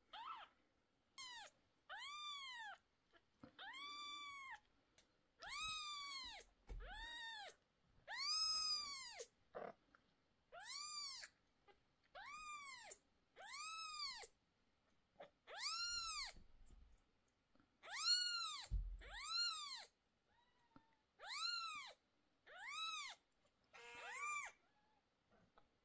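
Newborn kitten mewing over and over: thin, high-pitched cries that rise and fall, about one every second and a half, the distress calls of a very young kitten being held for eye treatment.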